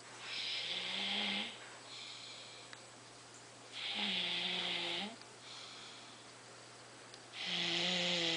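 Snoring: three loud snoring breaths about three and a half seconds apart, each lasting about a second with a low buzzing note, and softer breaths in between.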